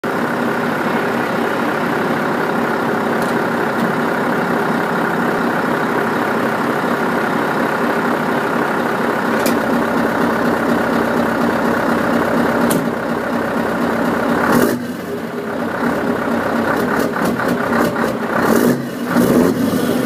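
Scania V8 diesel truck engine idling with a steady, even running sound. About fifteen seconds in the sound changes suddenly and turns uneven, with short irregular surges.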